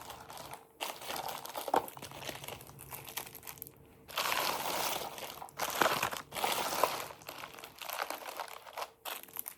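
Wrapped candy and candy wrappers crinkling and rustling as they are handled and sorted by hand, in irregular bursts that are busiest and loudest around the middle.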